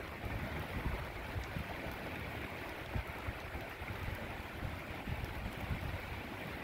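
Steady rain falling on a street and lawn, a continuous even hiss, with wind rumbling irregularly on the microphone.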